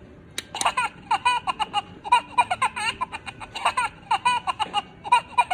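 Minion talking alarm clock playing a high-pitched Minion giggling laugh in a quick run of short bursts.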